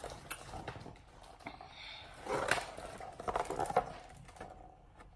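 Paper rustling and soft handling knocks as a page of a picture book is turned and the book is moved about, louder about two and a half and three and a half seconds in.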